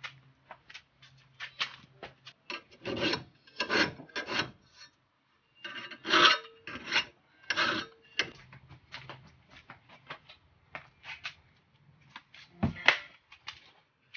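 Hand file rasping along the cutting edge of a steel John Deere Sabre mower blade clamped in a bench vise, in uneven runs of strokes that sharpen the blade. There is a brief pause about five seconds in and a dull knock near the end.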